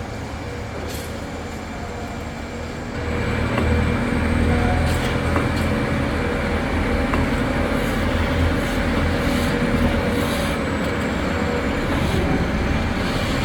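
Steady engine-like rumble that gets louder about three seconds in, with a few faint short clicks over it.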